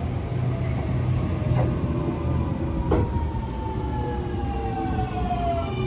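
Sydney Trains M-set double-deck electric train pulling into the platform and braking: a steady low rumble of wheels on rail, under a whine that slowly falls in pitch as the train slows. Two sharp clacks of the wheels come about a second and a half apart.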